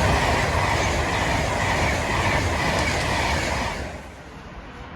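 Class 390 Pendolino electric train passing: a loud rush of wheel and air noise that cuts off sharply about four seconds in as the train clears.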